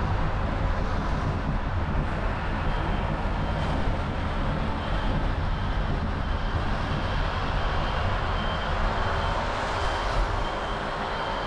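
Steady road and traffic noise of a Honda CR-V driving through city streets: tyre and engine rumble with passing traffic. From about a third of the way in, a faint high beep repeats a little more than once a second.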